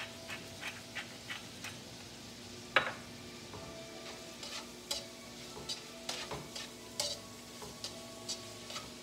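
Metal tongs clicking and scraping against a nonstick skillet as pork, shrimp and vegetables are tossed and sautéed, over a steady sizzle of frying. The clicks come about three a second at first, with one sharp clack about three seconds in, then at irregular intervals.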